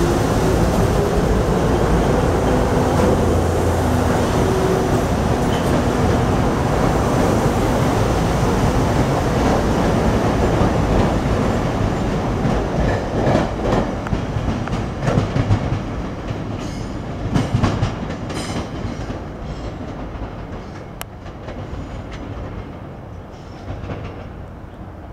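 SEPTA Silverliner IV electric multiple-unit commuter train running past close by, then pulling away. Its wheels click over the rail joints in the middle of the stretch, and the sound fades steadily as it recedes.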